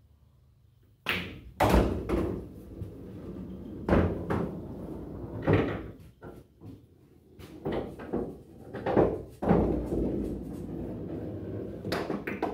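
A pool shot on a coin-operated bar-box table: the cue strikes the cue ball about a second in, then comes a series of loud knocks and thuds with a low rolling rumble between them.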